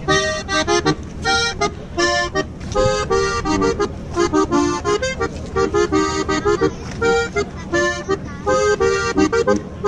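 Button accordion playing a lively folk dance tune in short rhythmic chords over a steady bass.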